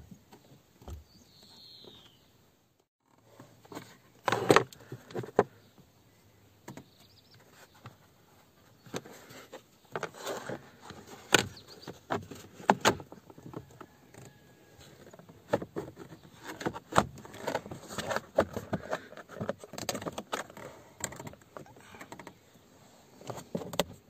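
Irregular clicks, knocks and rattles of hand work on a car's steering column: a metal socket wrench on the fixing bolts and the plastic column trim being fitted back around the ignition switch.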